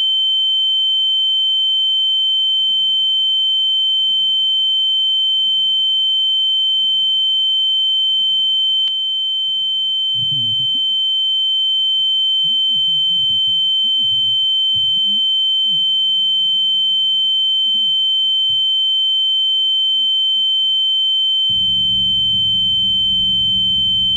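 A loud, steady, high-pitched electronic tone held without a break, with a fainter lower tone beneath it. Faint muffled low sounds run under it, and a louder low buzz comes in near the end.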